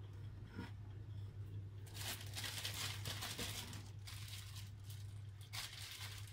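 Thin plastic bag crinkling and rustling as almond paste is packed into it by hand, in bursts about two seconds in and again near the end, over a low steady hum.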